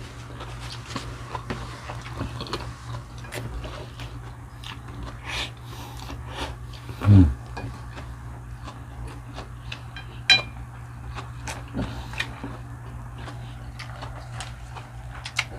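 Close-up chewing and biting of fried chicken, with many small wet clicks. A short voiced sound comes about seven seconds in, and a brief bright clink of cutlery on a plate about ten seconds in.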